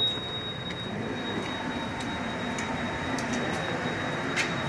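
Steady high-pitched buzzer tone from a fire-alarm control panel, set off by a pressed manual call point, heard faintly under a hiss of room noise, with a few light clicks.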